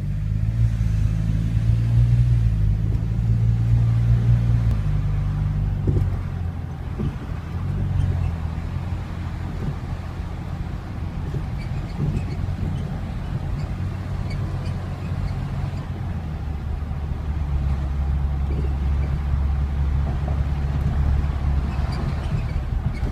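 BMW E60 on ST coilovers driving, with a steady low engine and road rumble and a few faint knocks from the suspension. The knocks are the abnormal noise from the ST coilovers.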